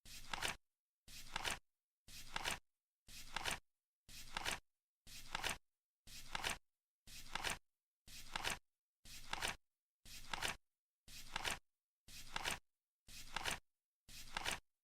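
Flip clock's flaps turning over once a second as the timer counts down: each flip is a short burst of noise that swells for about half a second and ends in a sharp click, with dead silence between flips.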